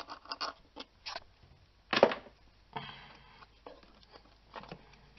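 Hand tools and metal parts clicking and knocking while a bolt is removed from an engine's air cleaner support, with a sharp clank about two seconds in and another near the end.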